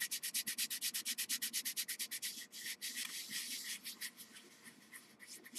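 Embossed cardstock being sanded by hand with quick back-and-forth strokes, about nine a second, that grow fainter and stop near the end. The raised embossing is being sanded to bring out the cardstock's core colour.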